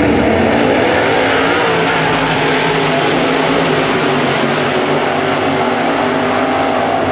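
Several dirt super late model race cars' V8 engines running hard together on the track. The overlapping engine notes rise and fall in pitch as the cars accelerate and pass.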